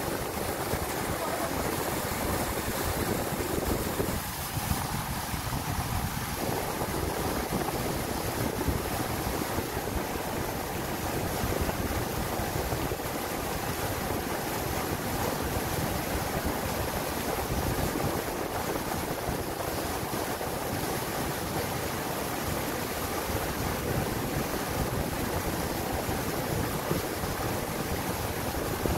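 Sea surf breaking and washing over rocks at the water's edge: a steady rushing noise.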